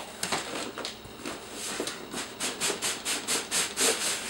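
Cardboard scraping on cardboard as a long outer shipping box is worked off an inner box. It starts as scattered rustles, then becomes a run of short scrapes at about four a second.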